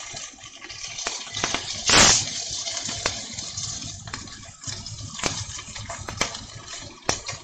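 Chicken pieces frying in oil in a cast-iron skillet: a steady sizzle with scattered sharp pops and crackles, and one brief, louder hiss about two seconds in.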